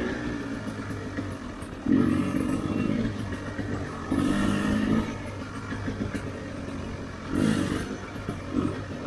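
Dirt bike engine running on an off-road ride, with short surges of throttle about two seconds in, about four seconds in, and twice near the end.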